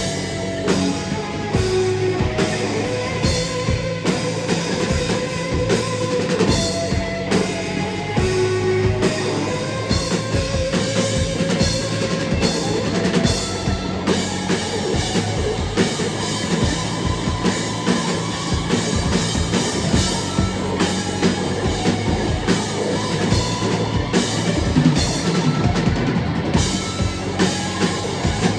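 Rock band music with a prominent drum kit, bass drum and snare, played at a steady loud level.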